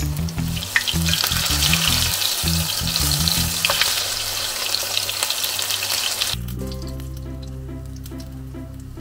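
Zucchini fritters sizzling in hot oil in a frying pan, with a couple of sharp clicks. The sizzle cuts off suddenly about six seconds in, leaving soft background music with a steady beat that runs under it throughout.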